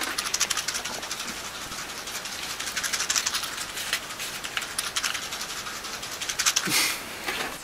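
Binaural recording of matches rattling in a shaken wooden matchbox: a dense run of quick dry clicks and rattles, growing louder near the end.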